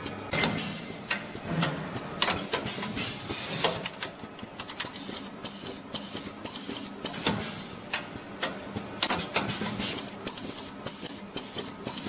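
Automatic lock-cylinder assembling and pressing machine at work, making a busy, irregular clatter of sharp clicks and knocks as it assembles and presses the components into the cylinder.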